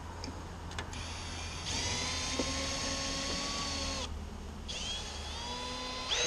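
Power drill driving screws to fix a 2x10 wooden hive divider: the motor runs with a steady whine for about two and a half seconds, stops, then runs again for a second and a half.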